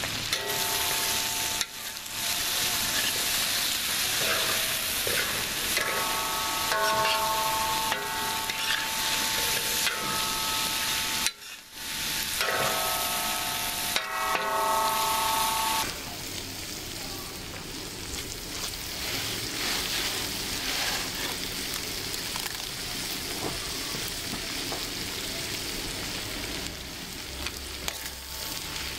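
Chicken and vegetables sizzling in oil in a steel plow-disc pan (discada) over a propane burner, with a metal spatula stirring and scraping against the steel. Steady humming tones come and go through the first half.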